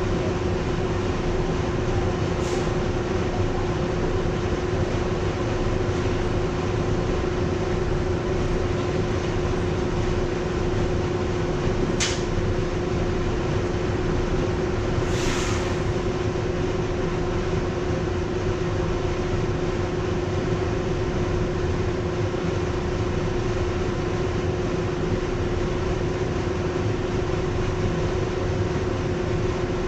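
R62A subway train running steadily, heard from inside the lead car: a continuous rumble of wheels on rail with one constant steady hum. Three short high hisses cut through it, the longest lasting about a second near the middle.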